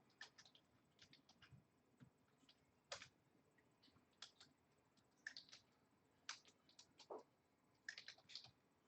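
Faint, irregular clicking of typing on a computer keyboard, a few keystrokes at a time with short pauses between.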